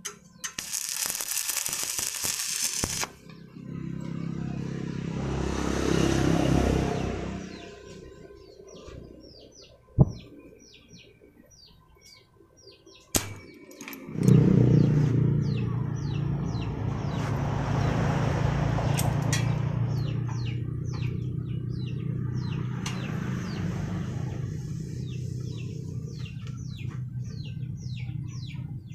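Small birds chirping repeatedly, several short high calls a second, over a steady low hum. In the first half there are bursts of hiss and a couple of sharp knocks.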